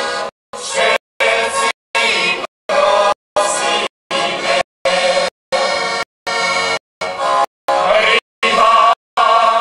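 Large folk choir singing with accordion accompaniment. The sound is chopped by brief dropouts to silence about every half second.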